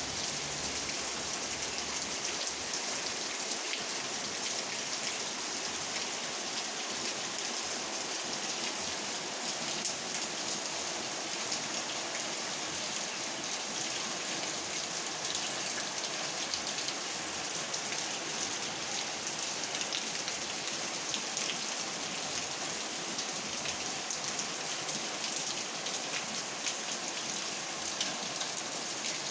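Steady rain falling, a dense patter of drops that runs evenly without letting up.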